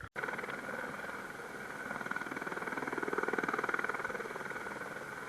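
Helicopter running on the ground, its engine and rotor making a steady, rapid, even beat that swells a little midway.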